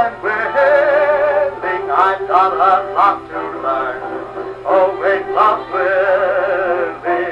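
Music from a 1929 78 rpm gramophone record, played back through a circa-1930 two-valve amplifier and loudspeaker and picked up by a microphone.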